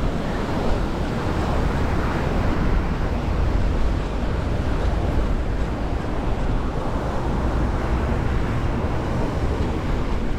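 Wind rumbling and buffeting on the microphone while cycling, a steady, loud, noisy rush with a deep rumble.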